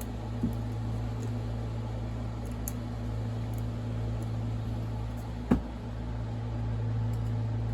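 Steady low hum in the background, with a few faint handling clicks and one sharp click about five and a half seconds in, from working a retaining clip out of the chain-brake spring and cam assembly of a Stihl MS460 chainsaw.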